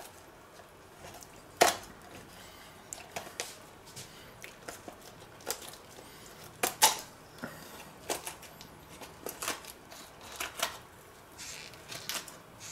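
Poultry shears snipping and crunching through the bones of a roast duck in a string of irregular cuts, with sharp clicks of the blades; the loudest snips come about a second and a half in and again around seven seconds in.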